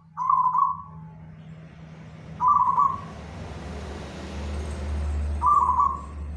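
Zebra dove (perkutut) cooing from its cage: three short, loud coo phrases, each about half a second long, spaced roughly two and a half to three seconds apart.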